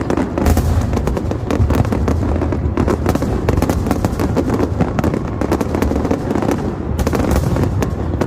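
Fireworks display going off: many bangs and crackles in quick, overlapping succession, with heavier booms about half a second in and again near the end.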